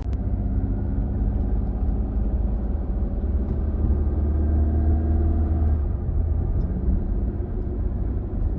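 Car driving on the road, heard from inside the cabin: a steady low rumble of road and engine noise with a faint engine hum.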